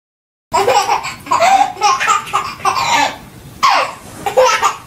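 Baby laughing in repeated bursts of giggles, starting suddenly about half a second in.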